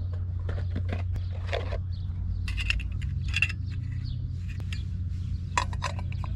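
Footsteps scraping and clicking irregularly on rocky, stony ground, over a steady low rumble.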